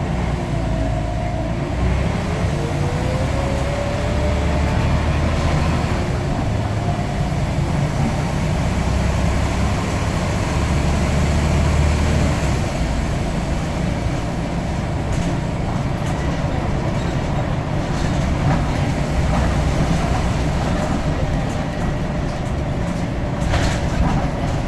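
Scania N94UD double-decker bus running under way, its engine drone shifting as it pulls. A whine rises in pitch over the first few seconds as the bus gathers speed.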